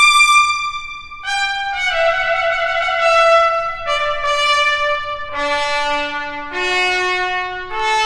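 Trumpet playing a slow line of long held notes. After a short break about a second in, the line steps down from high to low, then climbs back up near the end.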